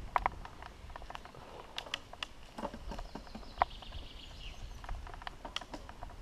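Mountain bike rolling fast over a bumpy, leaf-covered dirt trail: irregular clicks and rattles as the bike jolts over roots and ruts, over a steady low rumble.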